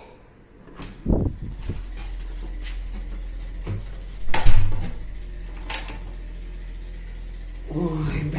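A wooden door being opened and shut, with knocks and a loud bang about four and a half seconds in. A steady low hum sets in about a second in.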